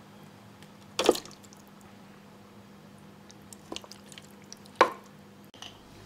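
Soft cooked vegetables in their juice dropping off a ladle into a plastic food processor bowl: wet plops, the loudest about a second in and again near the end, with a couple of fainter ones between.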